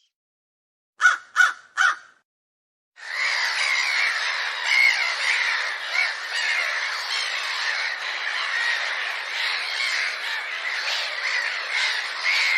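Three short crow caws in quick succession, then after a brief silence a large flock of crows cawing and squawking together in a dense, continuous overlapping chorus.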